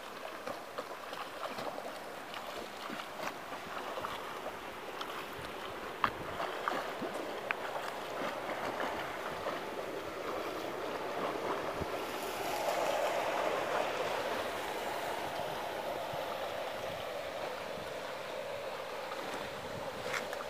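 Pool water splashing and lapping from a child's swimming strokes, as a steady hiss with a few small clicks, growing louder a little past halfway.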